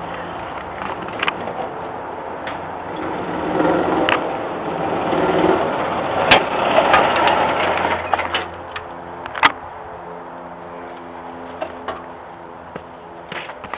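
Old utility golf cart with a small engine running as it drives up over rough ground, getting louder as it comes close, with a few sharp knocks and rattles from the body. About eight seconds in it settles to a steady idle.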